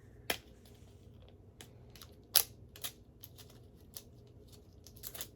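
Packaging being opened by hand: scattered sharp clicks and light rustles of plastic and card, irregular, with the loudest snaps about a third of a second and two and a half seconds in and a quick cluster near the end.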